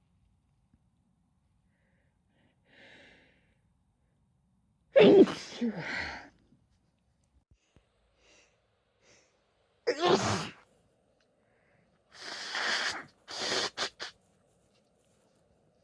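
A woman sneezing, twice: a loud sneeze about five seconds in and another about ten seconds in. Near the end come several shorter, breathy bursts of nose blowing.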